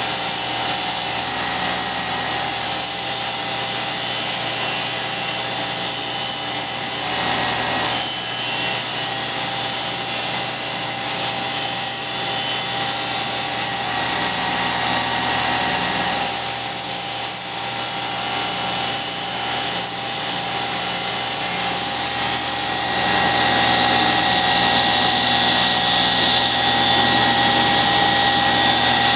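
Table saw running while ripping a thin strip of wood along the fence. About 23 s in the high hiss of the cut stops abruptly and the saw runs on with a steady hum.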